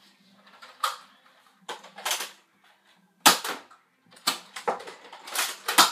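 Plastic Nerf blaster being loaded, primed and fired: a string of sharp plastic clacks and snaps, the loudest about three seconds in and again near the end.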